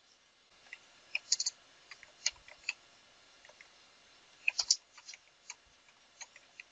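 Typing on a computer keyboard: irregular, scattered key clicks, some sharper than others, with a quick cluster a little past the middle.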